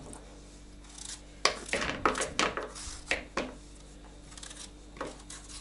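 Kitchen knife cutting chunks off a peeled zucchini held in the hand, the pieces dropping into a plastic bowl: a run of short cutting and scraping strokes from about a second and a half in, and a few more near the end.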